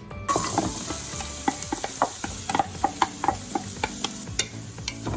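Diced onions going into hot olive oil in a pan, setting off a sudden, loud sizzle about a quarter second in. A utensil clicks repeatedly against the pan as they are stirred.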